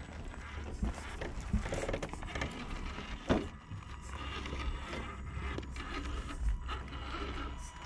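Radio-controlled rock crawler climbing granite boulders: its small electric motor and gears whine faintly while the tyres scrape and click on the rock, with one sharp knock about three seconds in. A low rumble of wind on the microphone runs underneath.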